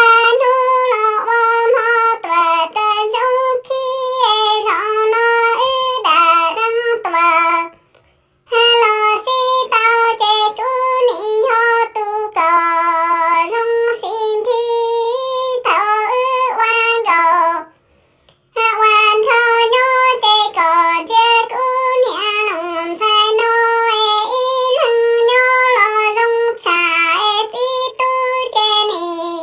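A single high voice singing Hmong kwv txhiaj (sung poetry), unaccompanied, with wavering held notes in long phrases broken by short pauses about 8 and 18 seconds in.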